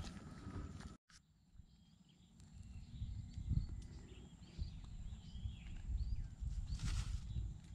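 Small birds chirping in short, repeated calls over a low, gusty rumble of wind on the microphone. The sound drops out briefly about a second in, and there is a short rustle near the end.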